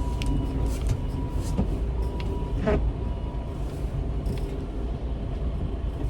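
A semi-truck's engine running at low speed as it is eased into a tight lane, a steady low rumble heard from the cab, with scattered light clicks and a brief squeak about two and a half seconds in.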